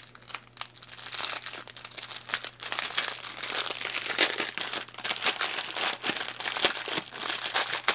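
Small clear plastic bags of diamond-painting drills crinkling as they are handled and sorted through: a dense run of crackles, busier from about three seconds in.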